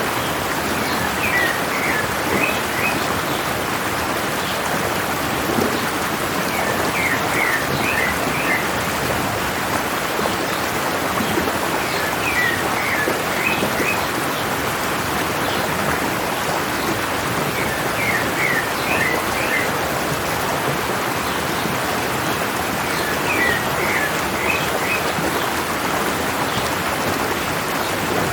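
Stream water running down a mountainside, a steady rush. Over it a bird sings a short phrase of quick high chirps, repeated about every five to six seconds.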